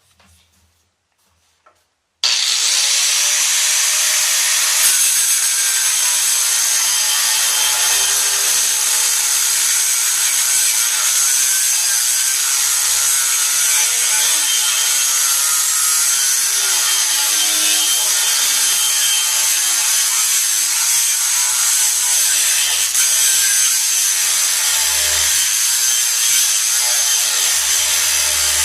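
Angle grinder with a cut-off wheel cutting through a steel I-beam. It starts suddenly about two seconds in and runs steadily, a loud grinding noise with a high whine.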